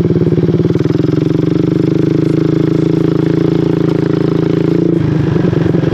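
Suzuki AN400 Burgman 400cc single-cylinder engine running under way on a homemade pickup-coil and DC CDI ignition. The engine note is steady, then drops and turns uneven about five seconds in.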